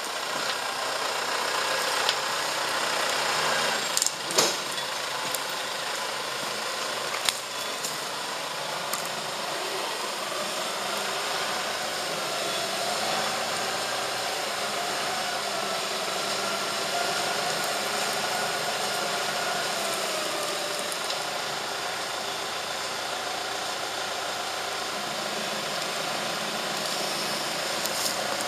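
Farm tractor engine running steadily while it powers a forwarder trailer's hydraulic log loader, with a whine that rises and falls as the crane works. A few sharp knocks come in the first several seconds.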